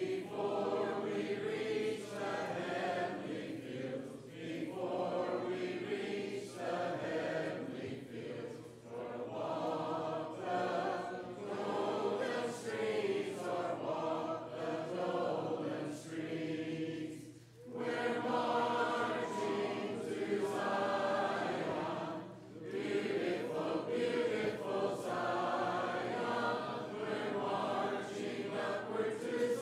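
Church congregation singing a hymn a cappella, many voices in unison and harmony without instruments, in phrases with short breaks between lines.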